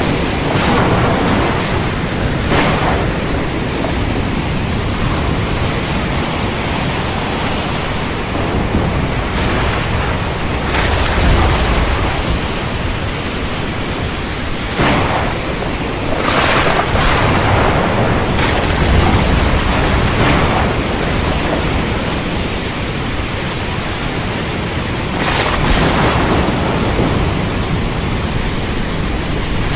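Heavy rain falling steadily with rolling thunder rumbling underneath and several short sharp cracks through it.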